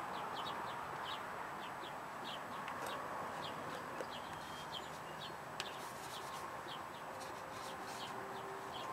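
Small birds chirping: short, high chirps come several times a second over a steady background hiss, with a couple of faint clicks.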